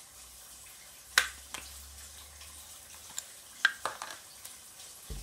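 Fish frying in a wok of hot oil: a faint steady sizzle with a few sharp pops, the loudest about a second in and again past three and a half seconds. A low thump comes near the end.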